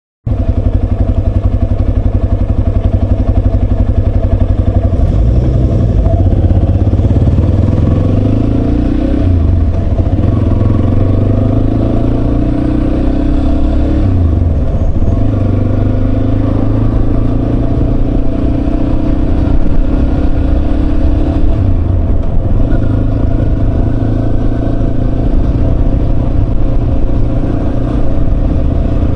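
Yamaha Serow 250's single-cylinder four-stroke engine running under way. Its pitch climbs and then drops back several times as it is shifted up through the gears.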